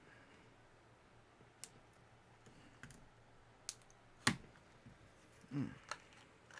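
Sharp, separate clicks and snaps of a laptop battery's hard plastic case being pried at, four of them spread out, the loudest about four seconds in.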